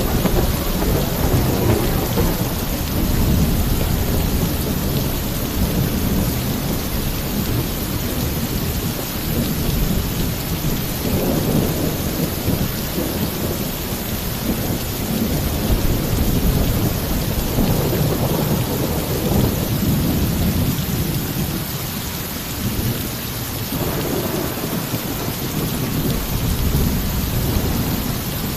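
Torrential rain pouring steadily on a roof, with rolling thunder rumbling low several times.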